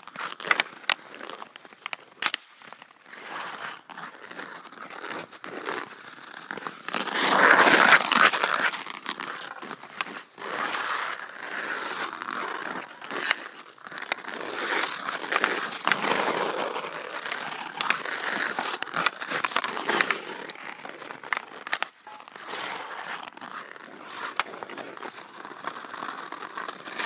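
Ice skate blades scraping and carving across outdoor pond ice close to the microphone, with scattered clicks and taps. The noise swells louder several times, most strongly about seven seconds in, then fades back.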